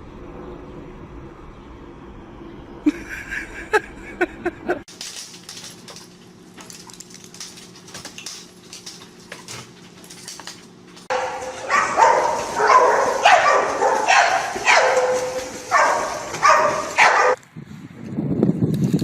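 A dog giving a quick run of short barks and yelps, several of them dropping in pitch, starting about eleven seconds in and stopping abruptly about six seconds later. Before that there is only quieter background sound with a few light clicks.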